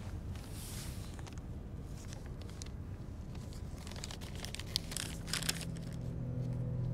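A folded sheet of paper being handled and unfolded, crinkling in two spells, about half a second in and again around four to five seconds in. Near the end a low steady hum comes in.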